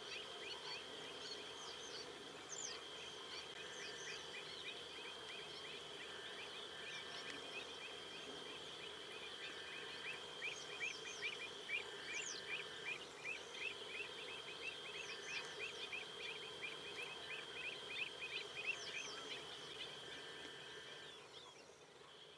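Wetland ambience: many birds calling in short, quick chirps over a steady high hum, busiest in the second half and fading out near the end.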